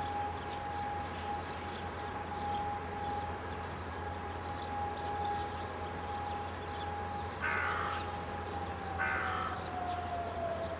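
E57 electro-mechanical siren, driven by a 5 kW three-phase motor, holding a single steady tone at full speed. About nine seconds in it begins to wind down, its pitch falling as the motor is switched off at the end of one blast of the fire-alarm test signal. Twice, a short harsh noisy call cuts in over the tone.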